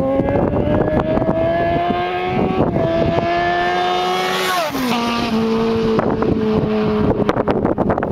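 Kawasaki ZX-14's inline-four engine at high speed on a fly-by: the pitch climbs as the bike accelerates toward the listener, with a brief dip about two and a half seconds in, then drops sharply as it passes about halfway through and settles lower as it goes away. Wind buffets the microphone.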